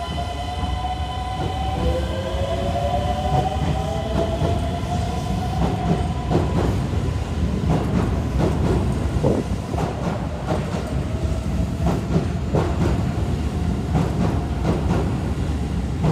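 Hokuso 7800-series electric train pulling away from the platform. Its motors whine, rising slowly in pitch as it gathers speed, over a steady rumble. From about four seconds in, wheel clacks over the rail joints come faster and faster as the cars pass.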